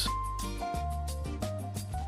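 Background music: soft held notes changing a few times.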